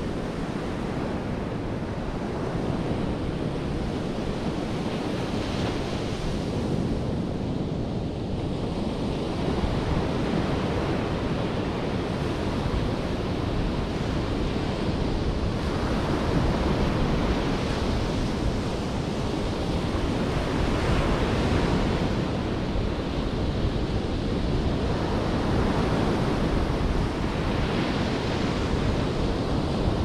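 Atlantic surf breaking on a sandy beach: a steady rush of water, with the hiss of breaking waves swelling and ebbing every few seconds.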